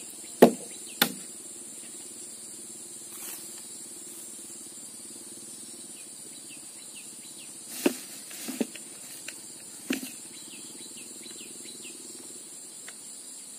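Steady high insect chirring, broken by a few sharp knocks: two near the start and a small cluster around eight to ten seconds in.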